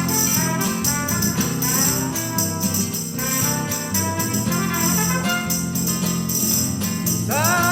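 Small brass band with strings playing an instrumental passage of Chilean popular music, with a tambourine jingling steadily. Near the end a note slides up and then holds.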